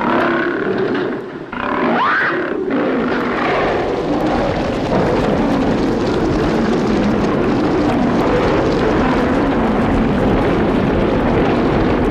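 Sound effect of a group of angry lions roaring: a few rising roars in the first three seconds, then a dense, continuous roar of many animals together that grows louder about five seconds in.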